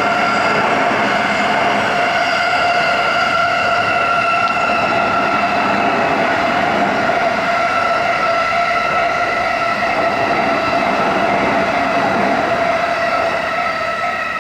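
A Japanese level-crossing warning bell rings its electronic tone while an electric commuter train runs through the crossing. The train's rumble begins to die away near the end.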